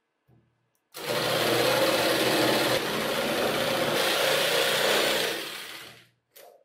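Electric jigsaw starting up about a second in and cutting through a wooden board with a steady buzz, then winding down and stopping near the end.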